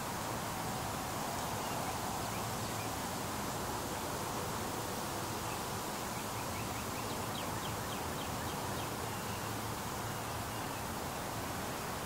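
Outdoor ambience: a steady hiss with faint high chirps scattered through it, coming in a quick run of short notes a little past the middle.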